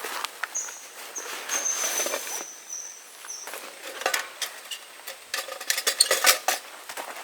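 Rustling and light clicking of camping gear being handled while a shelter is pitched, with a thin high-pitched whistling tone from about half a second in that lasts nearly three seconds and dips slightly, and a denser run of clicks near the end.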